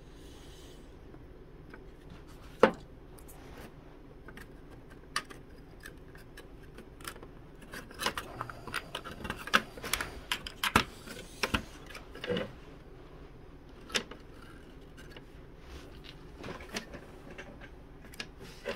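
Small clicks and taps of thin laser-cut wooden model-kit parts being handled and pressed into their slots on a workbench. A single sharp tap comes about three seconds in, a quick run of clicks follows roughly eight to twelve seconds in, and one more tap comes near fourteen seconds.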